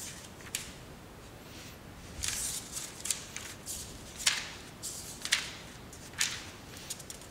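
Handling noise: a string of short, irregular scratchy rustles and clicks, roughly one a second, over a faint hiss.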